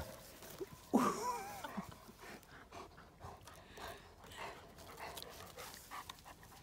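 A dog gives a short call about a second in, its pitch wavering, followed by faint scattered clicks as a large dog chews on a fallen stick.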